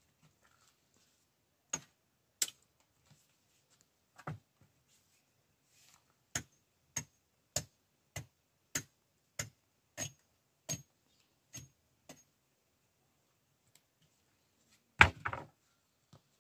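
A series of sharp knocks: a few scattered ones, then a steady run of about a dozen at a little under two a second, and near the end one louder knock with a short rattle after it.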